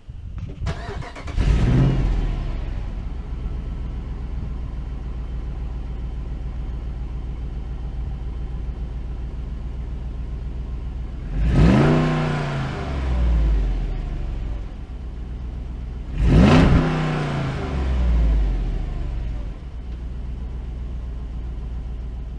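2005 Jeep Grand Cherokee's 5.7 Hemi V8 cold-started through its stock exhaust and muffler: the starter cranks briefly, the engine catches and flares, then settles to a steady fast idle. It is revved twice, rising and falling each time, with what the owner calls a pretty underwhelming exhaust note.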